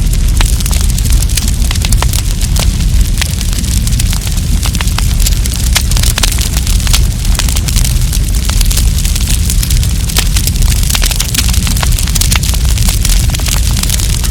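Wood campfire crackling, with many sharp pops and snaps at an irregular rate, over a steady low rumble.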